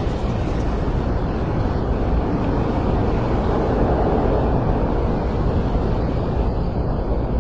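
Steady low rumble of an ambient soundscape mix, an even noise with no distinct events that swells slightly about halfway through.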